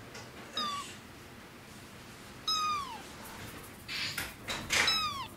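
A young kitten meowing three times, high calls that each fall in pitch, the middle one the longest, with a brief rustle just before the last.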